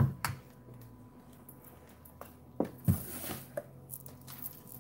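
Jars, bottles and a round metal tin being moved and set down on a cloth-covered table, giving a few short soft knocks, with a brief rustle of packaging about three seconds in.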